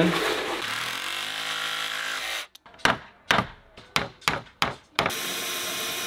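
Cordless drill driving a hole saw through a plywood board: a steady run, then a string of short bursts of the trigger, then a steady run again near the end.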